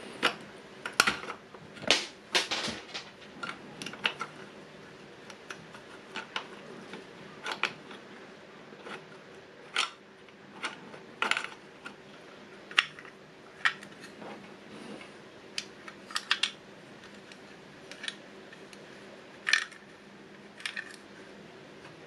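Irregular plastic clicks and clacks from a small toy gacha (capsule-vending) machine opened up, as its knob is turned and the mechanism handled, with a small ball knocking through it; the clicks come thickest in the first few seconds.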